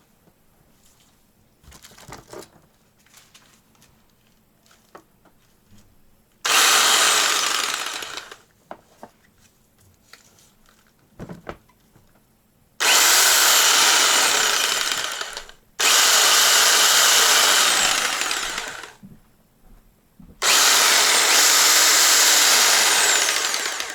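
HYCHICA corded jigsaw switched on four times, running free in the air with no workpiece, each run lasting a few seconds and winding down after the trigger is released. Quiet clicks and handling come before the first run.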